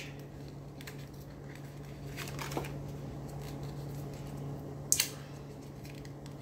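Faint handling of a small folded paper leaflet being unfolded by hand, with one sharp click about five seconds in, over a steady low hum.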